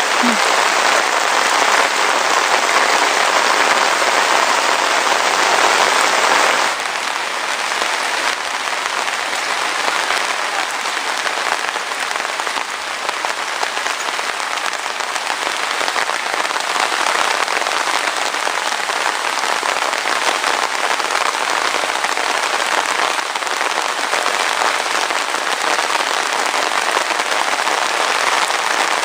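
Steady heavy rain falling, a dense even hiss of drops that becomes a little quieter about seven seconds in.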